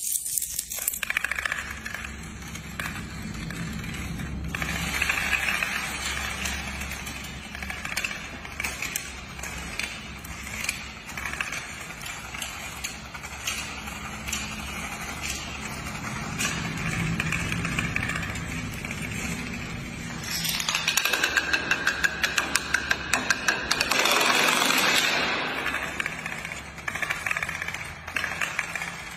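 Long chains of coins and then plastic dominoes toppling one after another on a hard tile floor: a continuous rapid clatter of small clicks, louder and denser for several seconds about two-thirds of the way through.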